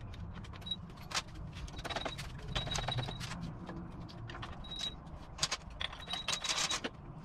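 Irregular metal clicks, taps and scrapes, some ringing briefly, as the case halves of an air-cooled Volkswagen engine are worked apart with a case splitter and by hand.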